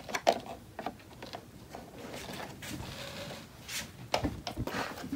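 Plastic dollhouse parts being handled: a scattering of light clicks and taps as the pieces are moved and touched.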